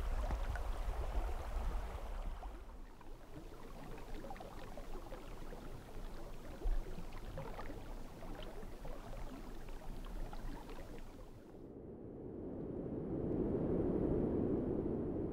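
Small waves lapping and washing on a gravel beach, with wind rumbling on the microphone at first and one low thump about seven seconds in. About three-quarters of the way through, this gives way to a steady low hum.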